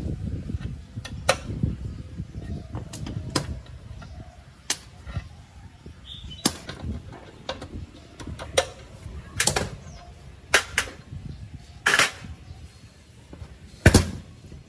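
Pliers clicking and knocking against the steel axle pin and wheel hub of a rusty compressor tank's wheel: irregular sharp metal clicks, two louder knocks near the end.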